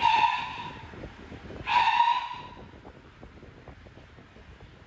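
South American sea lion pup calling for its mother: two loud, horn-like bleats, one right at the start and another about two seconds in, each lasting well under a second.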